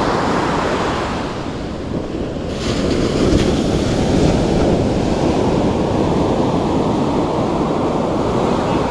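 Sea surf breaking on a sandy beach, with wind buffeting the microphone. The surf swells louder about three seconds in as a wave comes crashing in.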